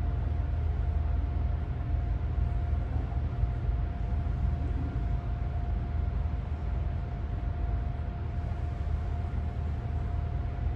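Light rain falling as a steady hiss over a constant low rumble, with a faint steady hum.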